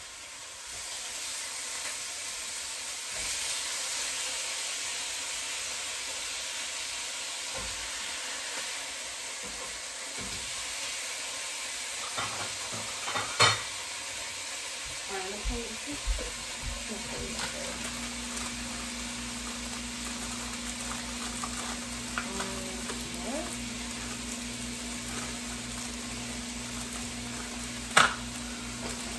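Food sizzling steadily in a frying pan. About halfway through a low steady motor hum starts underneath it, and there are two sharp knocks, one near the middle and a louder one near the end.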